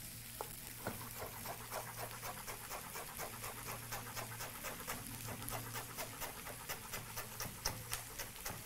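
Chef's knife chopping fresh coriander on a wooden cutting board: quick, even knife taps against the board, a few a second.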